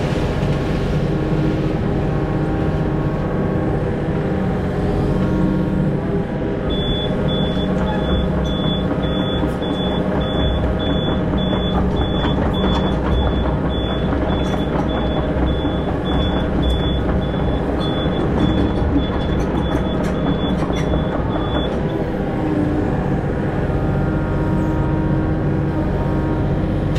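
Mini hydraulic excavator's diesel engine running steadily under work. For about fifteen seconds in the middle a high-pitched alarm beeps about twice a second while the machine is travelling, over scattered knocks and scrapes.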